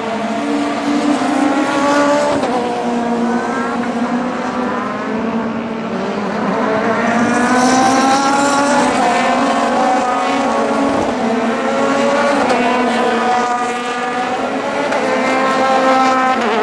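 Several CN-class sports-prototype race cars at full throttle going past. Their engines rev up through the gears, the pitch climbing and then dropping back sharply at each upshift, a few times over.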